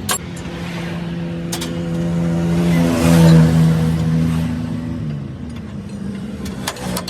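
A motor vehicle's engine hum grows louder to a peak about three seconds in, then fades away, like a vehicle passing on the road. Sharp metallic clicks come about a second and a half in and again near the end.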